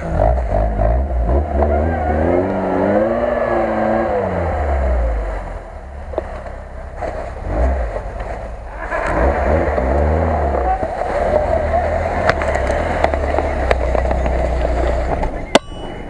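Lada Niva engine revving hard in two bursts, its pitch rising and falling as the 4x4 pushes through deep snow, over a steady low rumble. A sharp click near the end.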